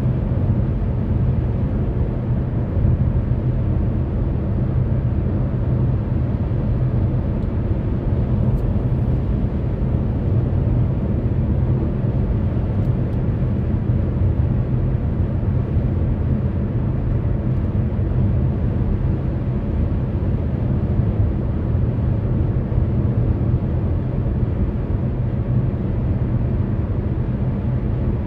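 Steady road and tyre noise from a car cruising at highway speed, heard inside the cabin: a constant low rumble with some hiss above it, unchanging throughout.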